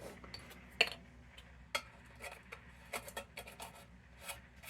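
Scattered light clicks and clinks of a kerosene lantern's metal parts being handled, a few short taps spread irregularly, the sharpest about a second in.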